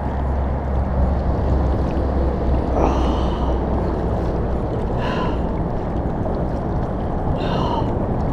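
Kayak being paddled hard against the tide: a steady rushing wash of water and air, with a stroke or heavy breath every two to three seconds.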